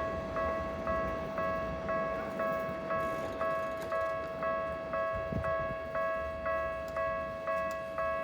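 Japanese railway level-crossing warning bell ringing its repeating electronic 'kan-kan' strikes, about two a second: the signal that the crossing is closed for an approaching train.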